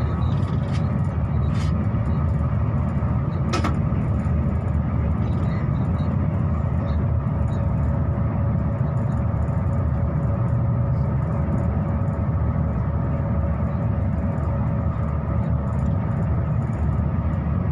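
Passenger train running, heard inside the carriage: a steady low rumble with a constant hum over it and a single sharp click about three and a half seconds in.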